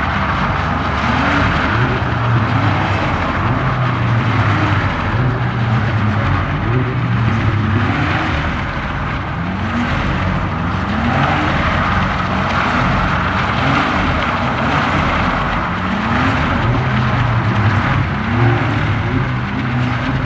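BMW 1 Series hatchback being drifted, its engine revving up again and again, roughly once every second or so, over the steady hiss of its tyres sliding.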